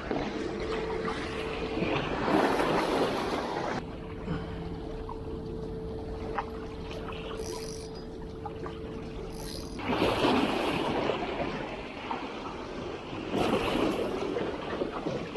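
Sea waves washing ashore, surging loudly three times, about 2, 10 and 13 seconds in. A steady hum runs between the surges.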